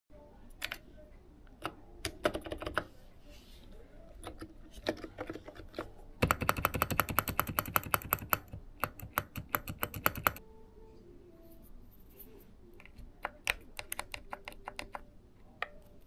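Typing on a Hansung GK868B electro-capacitive (Topre-style) keyboard: scattered keystrokes, then from about six seconds in a fast, loud run of spacebar presses for about four seconds, each one clanking ('kkang kkang'), then more scattered typing. The clank is the spacebar's stabilizer, not yet lubricated.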